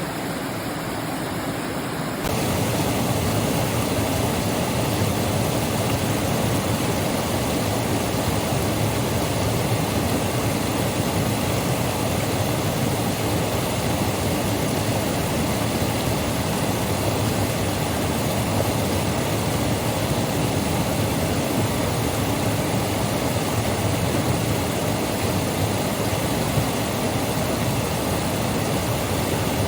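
Small natural waterfall on a mountain stream: a steady, dense rush of falling water, loud enough to drown out a voice. It gets louder and brighter about two seconds in.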